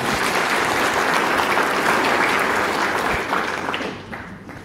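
An audience applauding, the clapping thinning out and dying away near the end.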